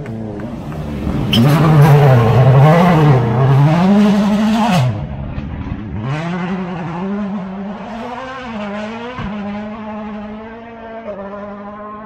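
Rally car going through a gravel stage at racing speed, its engine revving hard up and down through gear changes. It is loudest, with a rush of tyre and gravel noise, from about one to five seconds in, then the engine note drops away, rises again through a few more shifts and fades as the car drives off.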